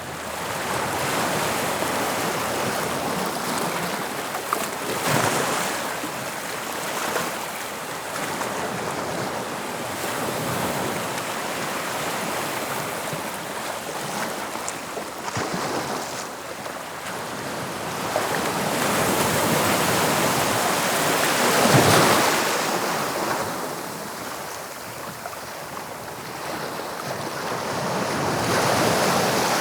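Sea waves breaking and washing on the shore: a continuous surf that swells and ebbs, with louder breakers about five seconds in and again around twenty-two seconds, building once more near the end.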